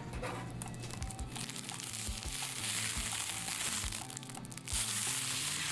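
Background music with a steady low beat and held tones, with a hissy swell in the middle and another near the end.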